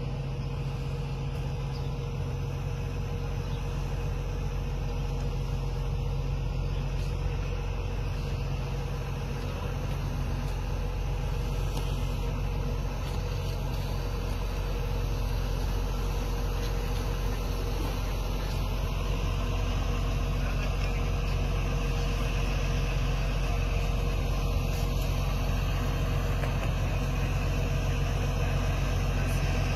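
A vehicle's engine running steadily: a continuous low hum with a faint steady tone above it, growing a little louder in the second half.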